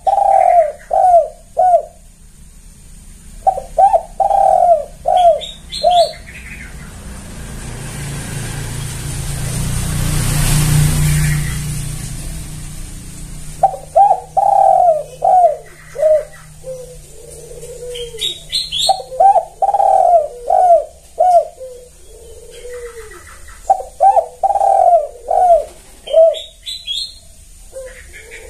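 Spotted dove (tekukur) cooing: repeated phrases of four or five quick, arched coos, the later phrases trailing into a lower, softer coo. In a long pause between phrases, a broad rush of noise with a low hum swells and fades, loudest about ten seconds in.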